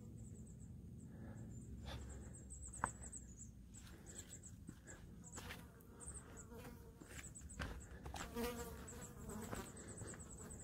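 Faint, high-pitched insect chirping in rows of short, quickly repeated pulses, with a few sharp clicks of footsteps on the trail.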